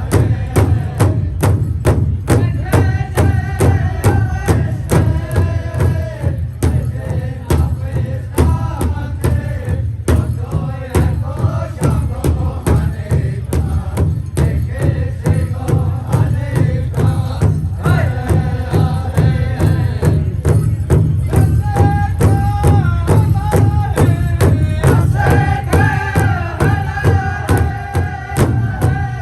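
Powwow drum group: several singers chanting in high voices over a steady, fast beat on a big drum.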